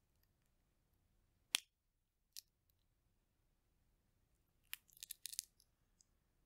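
Roasted chestnut shell cracked and peeled by fingers: a single sharp crack about one and a half seconds in, a smaller snap soon after, then a quick cluster of crackles near the end.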